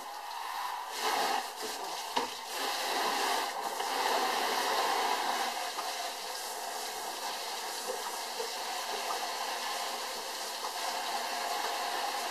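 Water jetting from a pull-down kitchen faucet sprayer against the inside of a plastic fermenting bucket and spattering into the sink: a steady hiss of spray, washing out the fermenter. A few knocks come in the first few seconds.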